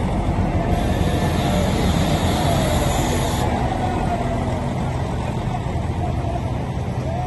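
Train running with a steady low rumble, and a hiss that comes in about a second in and stops about two and a half seconds later.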